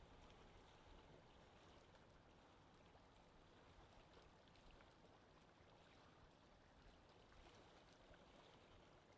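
Faint, steady wind ambience: an even rushing hiss with no gusts or breaks, with a few tiny faint ticks.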